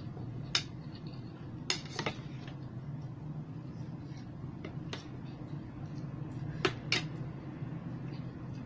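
A metal spoon clinking against a stainless steel bowl and a plate as cooked squash is served, about six sharp clinks, some in quick pairs, over a steady low hum.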